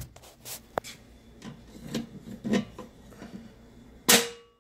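Handling noise from a handheld phone: irregular rubbing, scraping and clicks as it moves against clothing, with a sharp click about a second in and a louder rustle near the end.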